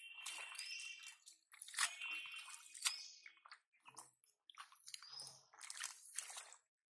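Hands and bare feet squelching and splashing in shallow muddy water among water plants, in short, uneven bursts with sharp clicks between.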